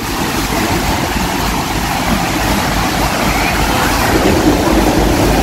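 Loud, steady rushing roar of the American Falls at Niagara and the churning river water at their base, heard from a tour boat's deck, with a heavy low rumble underneath. It grows slightly louder toward the end.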